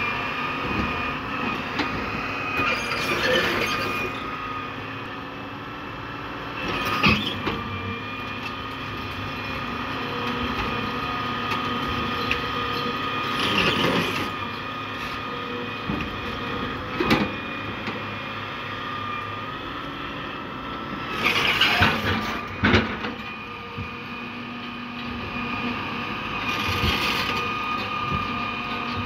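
Hitachi EX200 excavator's diesel engine running with a steady hydraulic whine while it handles a granite block onto a truck, with several short, sharp knocks and bursts of noise scattered through.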